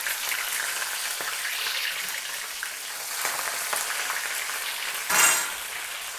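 Sweet corn kernels coated in cornflour and maida deep-frying in hot oil: a steady sizzle with fine crackling, and a brief louder rush of sizzling about five seconds in.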